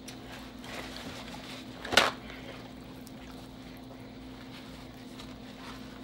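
A sheet of paper towel torn off a roll: one short, sharp rip about two seconds in, the loudest sound, with light paper rustling and a faint steady hum.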